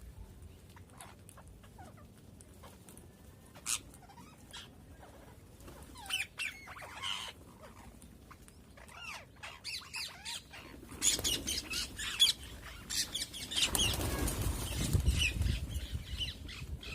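Parrots chirping and squawking in short, scattered calls that grow busier about halfway through. A louder burst of rustling comes near the end.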